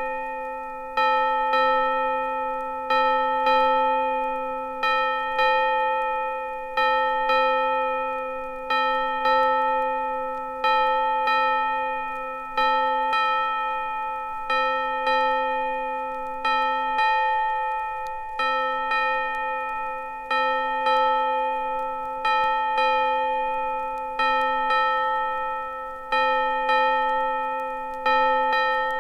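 A single bell struck over and over at one pitch, about once a second, each strike ringing on until the next.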